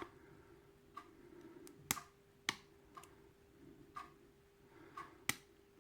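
Faint, irregular small clicks of a lock pick and tension wrench working the pins inside a Quickset pin-tumbler lock cylinder, about eight in all, over a faint steady hum.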